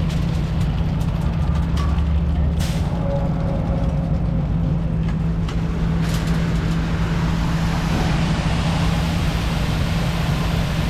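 Heavy vehicle engine running steadily with a constant low hum, with a few short knocks over it.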